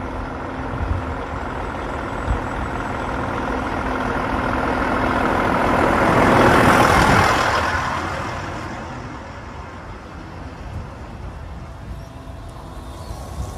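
Heavy semi-trailer truck driving up to and over the microphone. Its engine and tyre noise build to a peak about halfway through, then fade as the trailer axles roll past.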